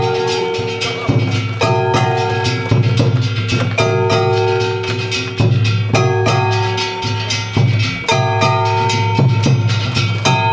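Festival float music: drums beating steadily under a short melodic phrase that repeats about every two seconds.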